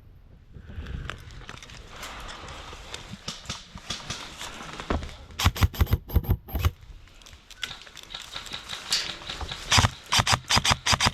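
Rustling of dry leaves and brush, then two quick bursts of rapid airsoft gunfire, about halfway through and near the end, each a string of sharp cracks.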